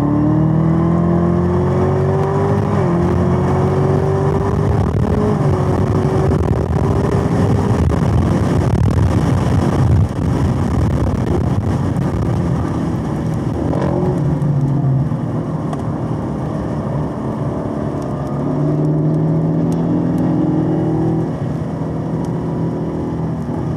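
Supercharged 6.2-litre V8 of a Chevrolet Camaro ZL1 1LE under hard acceleration, heard from inside the car on a racetrack. The pitch rises and drops sharply twice at the upshifts. The throttle lifts about ten seconds in, and the engine pulls again near the end.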